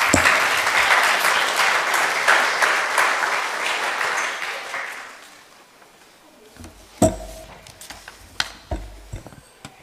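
Audience applauding, dying away after about five seconds. A few scattered knocks and a low rumble follow near the end.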